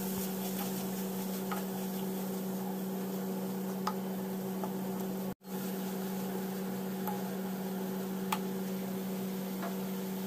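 Sliced onions frying in oil in a pan, a faint steady sizzle under a steady hum, with a few light clicks of a wooden spatula against the pan. The sound drops out for a moment about halfway.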